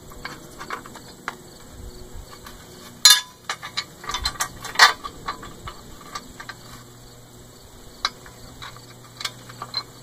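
Scattered clicks and metallic clinks as small hardware and a bolt-on latch part are handled and fitted onto a metal cart beam by hand. There are two sharper knocks, about three seconds in and near five seconds.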